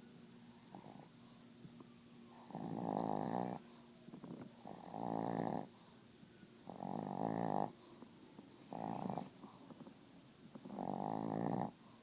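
Chubby Chihuahua snoring in its sleep: five rattly snores about two seconds apart, each about a second long, the fourth shorter.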